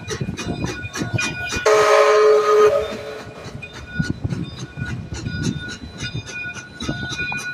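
Canadian Pacific steam locomotive passing: its steam whistle sounds one blast of about a second, about two seconds in, over a bell ringing steadily and the low rumble of the train.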